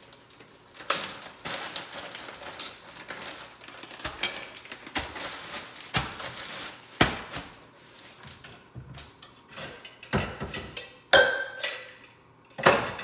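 Kitchen handling noise: plastic bags rustling and a string of sharp knocks and clatters of utensils and dishes on the counter, with a ringing clink about eleven seconds in.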